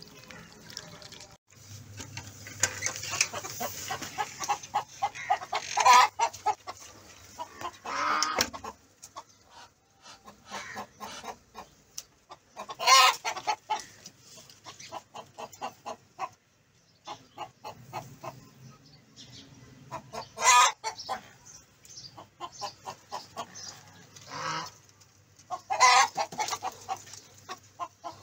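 Chickens clucking, with quick runs of short clucks and a few louder calls spaced through it.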